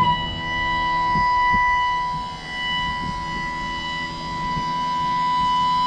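John Deere XUV835M Gator's power-lift hydraulic pump running, tilting the cargo bed up. It starts abruptly as a steady whine over a lower hum.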